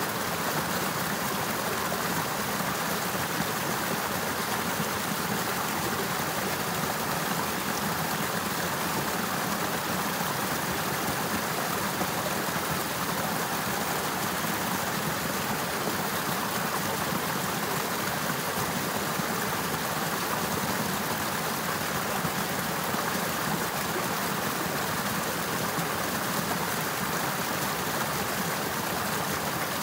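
Water of an icicle-hung, partly frozen river running steadily, an even rushing sound.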